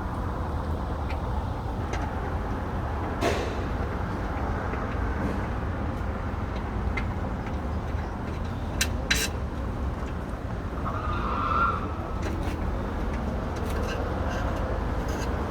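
Steady low background rumble with a few sharp metallic clicks, a flathead screwdriver turning out a rim lock's mounting screws.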